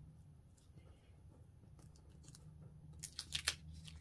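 Cut pieces of patterned paper being handled and pressed onto a paper border strip: a faint hum at first, then a quick cluster of paper crinkles and crackles about three seconds in.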